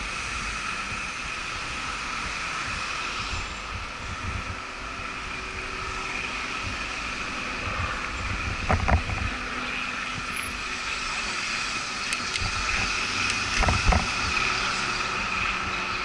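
Ride noise from a bicycle on a city street, with wind rumbling on the microphone and cars in the lane ahead. A steady high tone runs underneath, and there are two brief bumps, about nine and fourteen seconds in.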